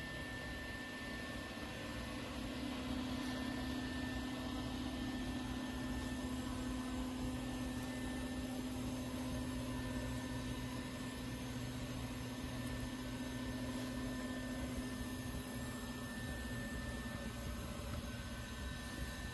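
Steady machine hum in a workshop: a low drone with a faint high whine over an even hiss.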